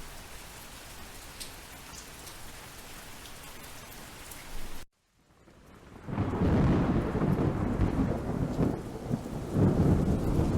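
Steady rain with scattered drips, which cuts out abruptly about halfway through. After a moment of silence a thunderstorm fades in: deep rolling thunder over heavy rain, swelling again near the end.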